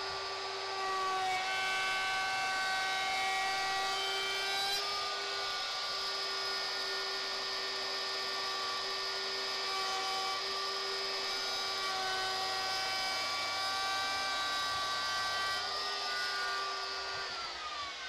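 DeWalt compact router running at full speed while its edge-profiling bit cuts a shallow first pass along the edge of a pine board, a steady high whine with slight shifts in pitch as the cutting load changes. Near the end it is switched off and winds down with a falling whine.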